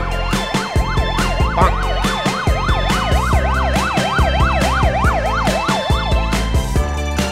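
Electronic siren wailing fast, its pitch sweeping up and down about three times a second and cutting off near the end, over background music with a steady beat.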